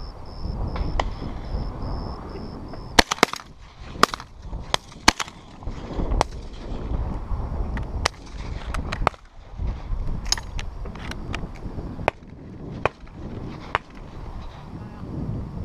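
Wind buffeting the microphone, with a scattered series of short, sharp clicks and cracks, several in quick succession at times, starting about three seconds in.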